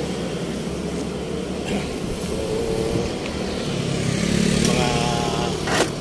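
Street traffic: motor vehicle engines running close by, with one engine, likely a motorcycle, growing louder about four seconds in, and a brief sharp click near the end.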